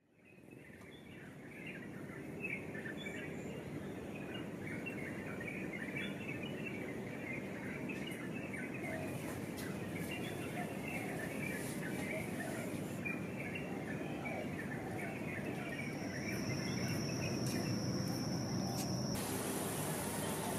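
Outdoor ambience fading in from silence: many small high chirps of birds and insects over a steady hiss. Near the end a thin high whistle is held for about three seconds, and a brighter hiss sets in.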